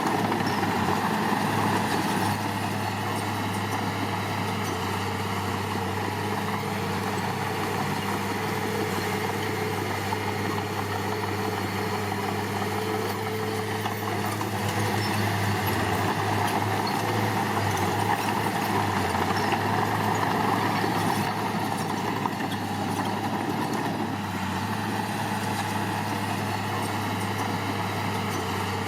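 Heavy diesel engine running steadily at an even pitch, with no change in load.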